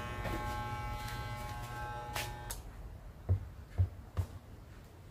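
Mains-powered electric hair clipper buzzing steadily on test with its newly fitted on/off switch, then cutting off suddenly with a click about two and a half seconds in. Three short dull knocks follow.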